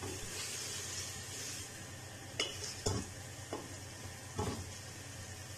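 A spatula stirring and scraping pieces of boiled mutton heart around an aluminium pressure cooker pot, with a light sizzle as the last of the cooking liquid is dried off. About four scrapes and knocks against the pot come in the second half.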